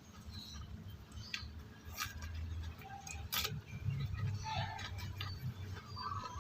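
Crunching and chewing of raw bitter gourd close to the microphone: a few sharp crisp crunches, the loudest about three and a half seconds in, then wetter chewing.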